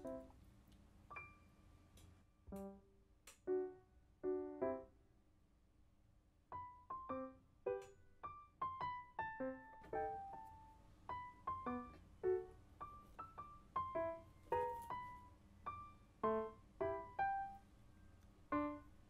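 Background piano music: a gentle melody of single struck notes, sparse at first, then a flowing run of notes from about six seconds in.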